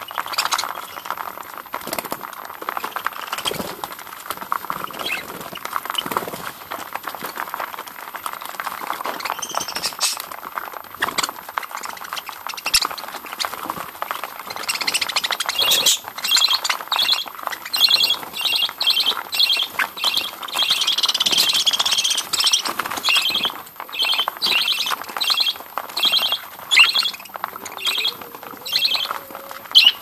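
A flock of budgerigars chattering as they feed together. About halfway in the chatter gives way to a rapid series of short, sharp chirps.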